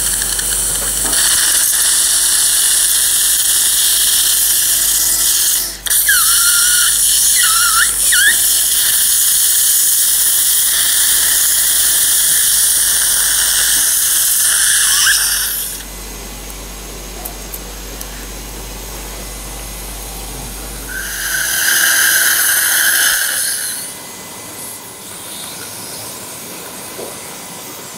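Dental implant surgical handpiece drilling into the jawbone through a metal guide sleeve: a loud, high-pitched whine with hiss. It dips briefly once and then runs on until about halfway through, drops away, and comes back for a short burst of about two seconds near the end.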